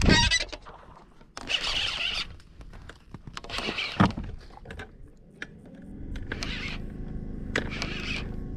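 Baitcasting rod and reel being cast and worked: a knock at the start, then short whirring bursts of line and reel with a sharp click about four seconds in. A steady low hum comes in from about six seconds on.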